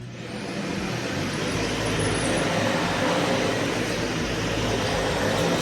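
Vacuum cleaner switched on, its motor spinning up over about a second and a half with a rising whine, then running steadily.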